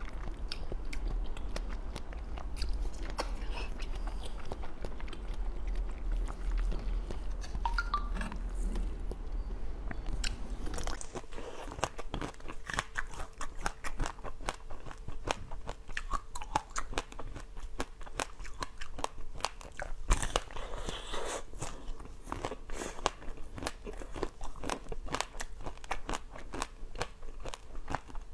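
Eating sounds: soft, wet chewing of jelly, then from about eleven seconds in, crisp crunching bites and chewing of a pink-coated donut.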